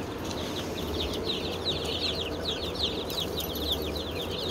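Baby chickens peeping continuously, many short downward-sliding peeps overlapping from the whole brood, over a steady low hum.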